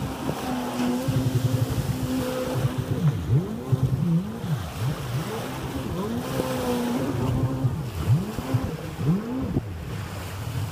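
Jet ski engines running on the water, their pitch rising and falling again and again as they rev up and ease off, with more than one engine heard at once at times.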